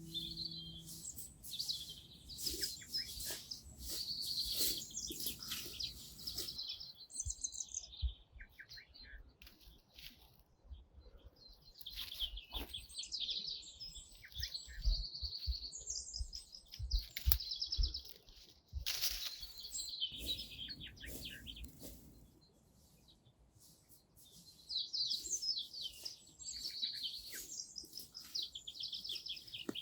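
Small songbirds chirping and trilling in quick, repeated phrases, with a couple of brief lulls. Occasional soft low bumps sound beneath them.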